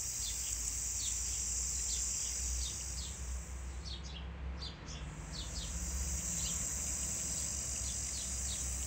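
Garden ambience: a steady high-pitched insect drone, with short, falling bird chirps a few times a second. The drone briefly thins out about halfway through.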